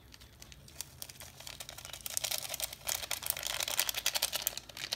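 Thin plastic seasoning packet crinkling in the hand as its spice seeds are shaken out over a raw corned beef brisket: a fine, rapid crackle of clicks, sparse at first and much denser from about two seconds in.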